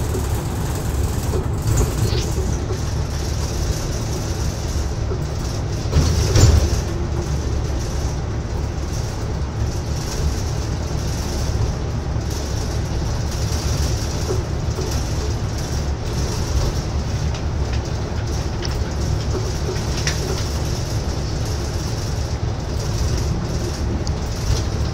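Ofunato Line BRT bus running, heard from on board: a steady rumble of engine and road noise. There is a louder bump about six seconds in.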